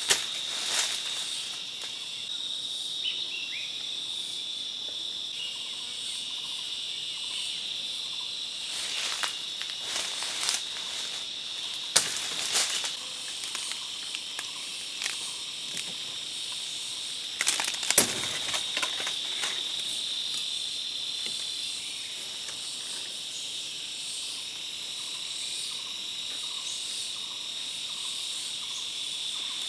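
A chorus of insects buzzing steadily in a high, even drone. A few sharp snaps or knocks break in, the loudest about twelve and eighteen seconds in.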